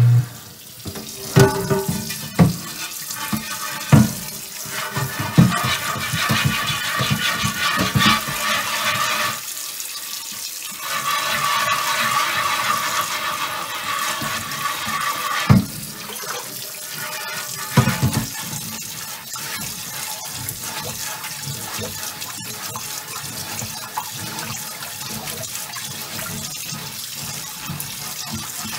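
Tap water running hard into a cast iron oval roaster in a stainless steel sink while the pan is scrubbed under the stream with a chain mail scrubber. Several sharp knocks stand out over the water in the first twenty seconds.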